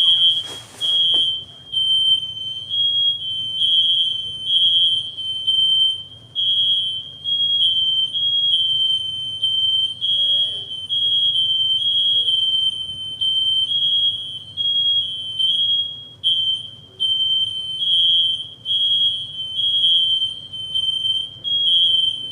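Fire alarm sounding: a loud, high-pitched piezo tone pulsing on and off without a break. It is a false alarm, with no fire and nobody cooking.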